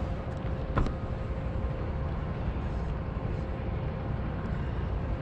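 Steady low outdoor rumble with a faint steady hum, and one short click a little under a second in.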